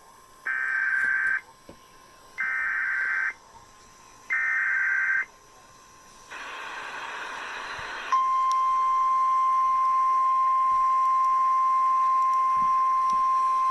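Emergency Alert System activation for a flash flood warning: three short bursts of warbling data tones (the SAME header), about two seconds apart, and then a brief hiss of radio static. About eight seconds in, the steady single-pitch warning alarm tone starts and holds.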